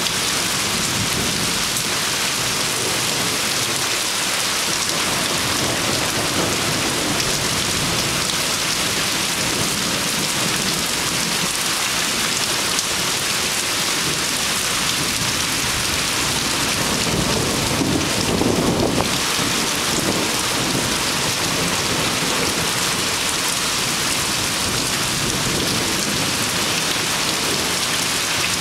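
Heavy rain pouring steadily in a thunderstorm. A low rumble of thunder swells about two-thirds of the way through.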